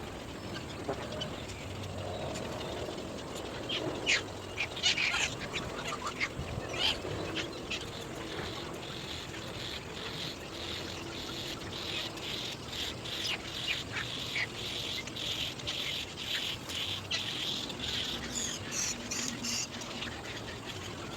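Birds calling: a few sharp calls, then a fast run of short, harsh calls, several a second, from about eight seconds in to near the end.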